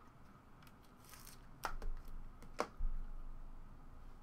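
Thick trading cards handled by hand on a table, with two sharp clicks and soft knocks about halfway through.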